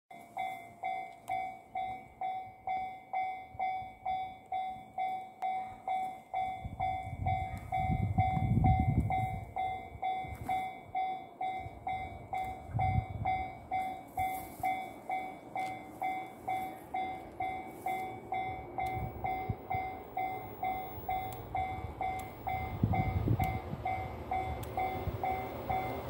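Japanese railway level-crossing warning bell ringing, a steady repeating ding about one and a half times a second, signalling that a train is approaching. A low rumble swells about eight seconds in and again near the end.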